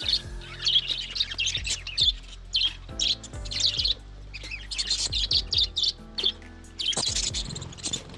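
Budgerigars chirping in quick, repeated bursts of high, warbling chatter, over background music with a steady low bass line.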